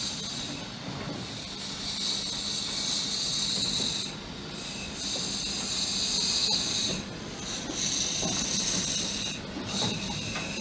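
Replica 4-4-0 steam locomotive moving slowly, steam hissing out of its open cylinder cocks in long hisses with short breaks between them.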